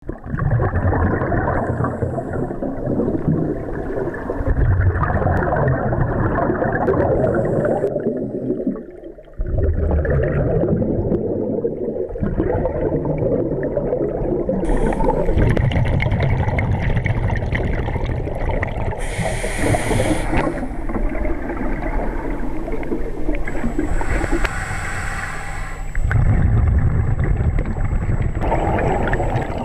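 Scuba diver's breathing heard underwater: continuous bubbling and gurgling of exhaled air from the regulator, with a few short hisses, briefly quieter about eight seconds in.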